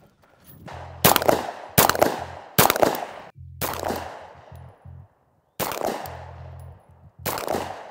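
Six shots from a SIG P228 9mm pistol, fired one at a time. The first three come less than a second apart, then the gaps widen. Each crack has a short echo trailing after it.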